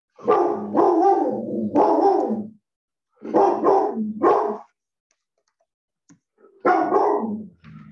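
Dog barking in three bursts of several barks each, with short silences between them.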